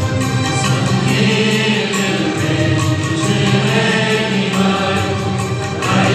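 Voices singing a slow hymn together, holding long notes that change pitch every second or two.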